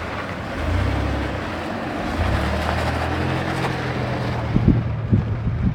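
Off-road 4x4's engine running at low revs with a steady hum, picking up slightly about half a second in and again after about two seconds, with wind noise over the microphone. A few irregular knocks come near the end.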